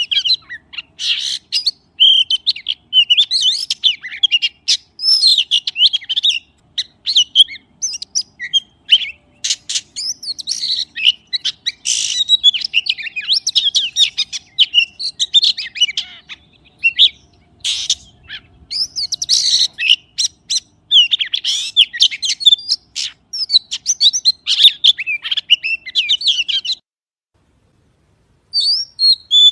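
Magpie calling in a rapid, varied run of chirps and whistles, breaking off for about a second and a half near the end before starting again.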